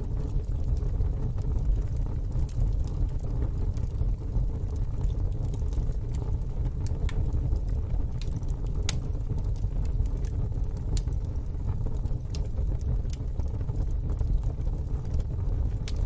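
Wood fire burning in a fire pit, with scattered sharp crackles and pops over a steady low rumble.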